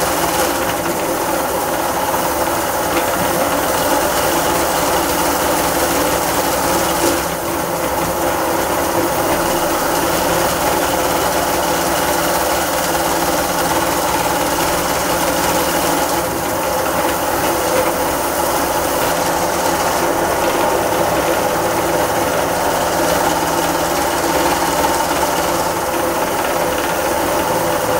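Motor-driven cast-aluminium meat grinder running steadily, its auger crushing chocolate lollipop discs and forcing them out through the plate.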